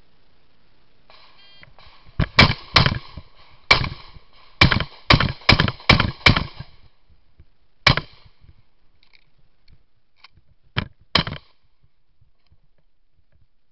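A brief electronic beep about a second in, then a fast string of gunshots: about nine shots in four seconds, one more shot near the middle, and a last pair of shots close together about three seconds later.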